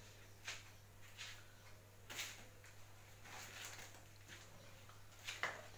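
Faint rustling and handling of paper chart sheets being taken down from and put up on a wall, in several short scrapes and crinkles, over a steady low electrical hum.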